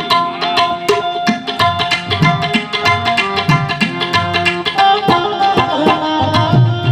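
Instrumental passage of Gujarati devotional folk music: a quick, steady tabla rhythm under a sustained melody line.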